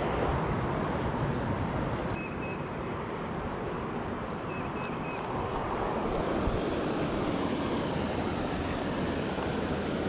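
Steady rush of high creek water flowing over and past a low-water concrete slab crossing.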